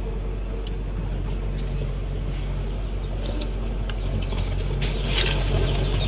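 Steady low hum, with a few light clicks and scrapes about five seconds in.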